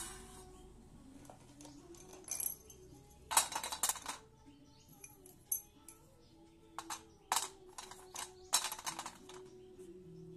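Sticks of white school chalk dropped onto a stainless steel plate, clattering and clinking against the metal in about six short bursts, the biggest about three and a half seconds in and near the nine-second mark.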